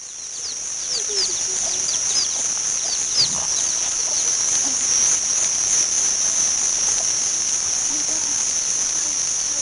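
Steady, high-pitched drone of a chorus of insects, with short falling bird chirps over it during the first few seconds.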